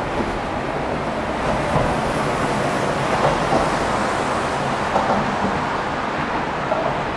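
Steady traffic noise from a city expressway: tyres and engines of cars and a bus passing, swelling a little as vehicles go by.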